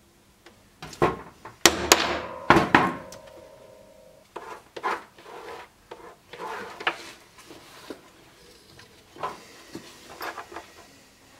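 A hammer striking a small metal tool held against leather on a wooden board: several sharp blows in the first three seconds, the last leaving a metallic ring that hangs for over a second. After that, quieter scattered taps and scrapes of tools being handled on the bench.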